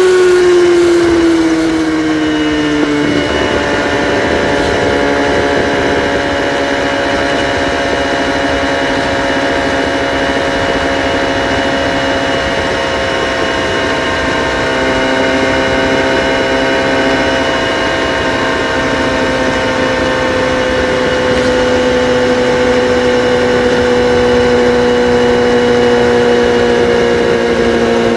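Kawasaki ZX-6R inline-four engine with its catalytic converters removed, running through the exhaust. Its revs fall off over the first three seconds, then it holds a steady speed.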